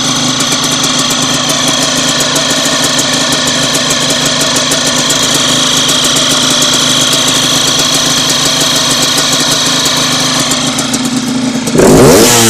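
Yamaha DTR 125 two-stroke single-cylinder engine idling warm, with a fast, high ticking over the engine note: the cricket-like chirping noise that the owner is trying to track down. Near the end the throttle is blipped and the engine revs up and down loudly.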